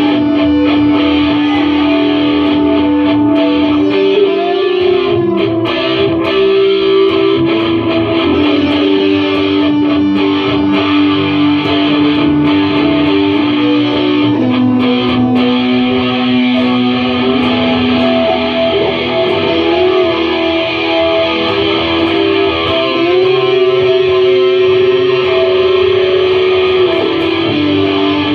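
Electric guitar music: long held notes that step to a new pitch every few seconds.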